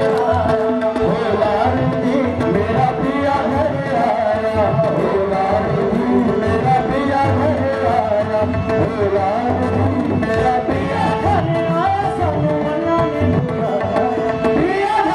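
Live qawwali: male voices singing over a harmonium's sustained drone, with hand-clapping and percussion keeping a steady rhythm.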